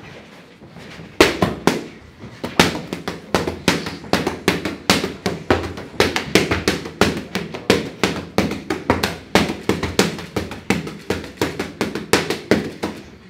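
Boxing gloves smacking focus mitts: a boxer throwing rapid combinations onto pads held by a trainer, about three hard punches a second, starting about a second in.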